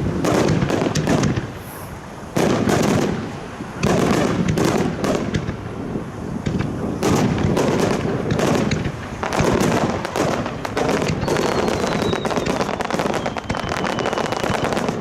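Aerial fireworks bursting in rapid succession: a dense, unbroken run of booms and crackles, with a faint falling whistle in the last few seconds.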